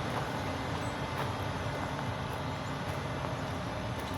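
Steady low rumble of outdoor background noise, with no sudden events.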